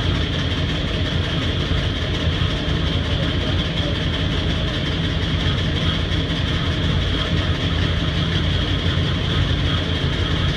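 Pickup truck engine idling steadily after a cold start in freezing weather, a constant deep rumble with a steady higher hum over it.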